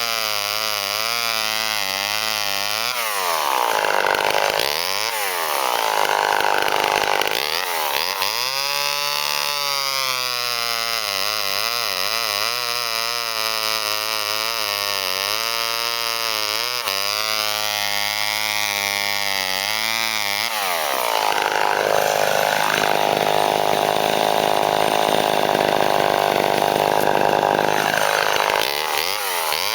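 Vintage Homelite two-stroke chainsaw running at high revs and cutting wood. The engine note sags and wavers as the chain bites: a short cut a few seconds in and a longer one from about twenty seconds in, with the saw revving back up between and after them.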